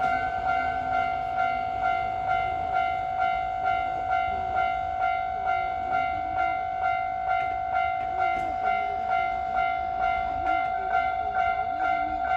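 Japanese railway level-crossing warning bell ringing steadily, its electronic clang repeating about twice a second.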